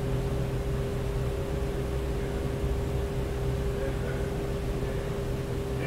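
Steady mechanical hum with a constant mid-pitched tone over a low drone and even noise.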